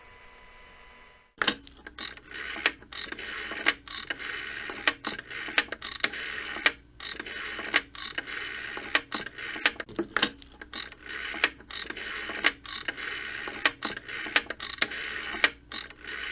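A faint dial tone cuts off about a second in, as a rotary telephone dial starts being wound round and let spin back, digit after digit. Each turn lasts about a second, with ratcheting clicks and a sharp click at its start.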